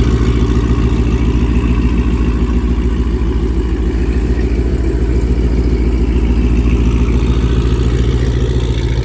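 A car engine idling with a steady, loud low rumble.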